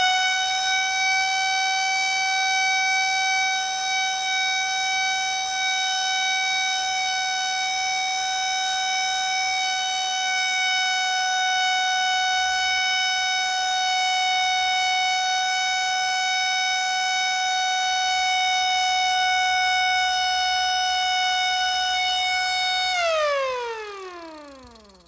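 Recorded tornado siren sound played through a small Bluetooth speaker inside a homemade Lego model of a Whelen Vortex siren. The siren holds one steady tone, then winds down near the end, its pitch falling away until it dies out.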